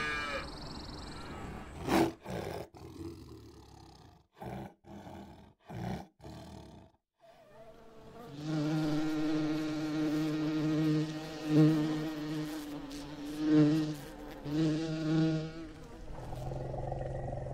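Tiger growling: a long, low, buzzing rumble in several stretches, after a few short, sharp sounds earlier on.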